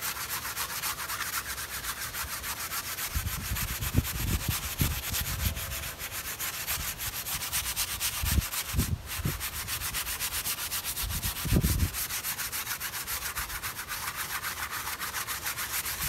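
A wide flat paintbrush scrubbing varnish back and forth across the surface of an oil painting: a steady, rapid scratchy brushing of bristles. A few low rumbly thuds come through around four, eight and a half, and eleven and a half seconds in.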